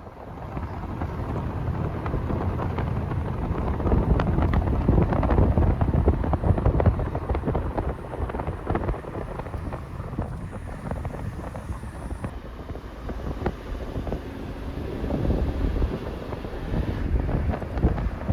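Wind buffeting the microphone: a loud, uneven low rumble that swells and eases in gusts, with no steady engine tone.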